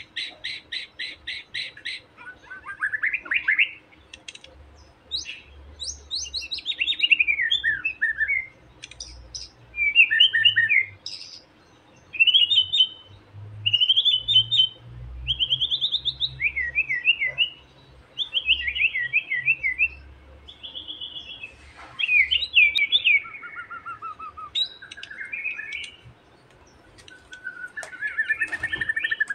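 Young wild white-rumped shama (murai batu) singing its taunting 'ejekan' song, which provokes rival males. It opens with a fast run of repeated notes, then gives a string of short, varied whistled phrases with rapid trills and sliding notes, each about a second long with brief pauses between.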